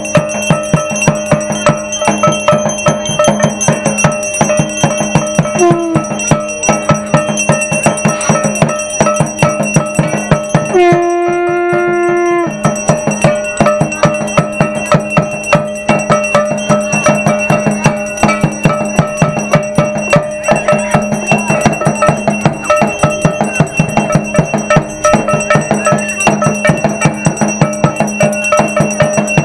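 Bells and drum of a Hindu evening aarti: fast, steady beating with continuous bell ringing. About eleven seconds in, a single held horn-like note sounds over the ringing for a second or two.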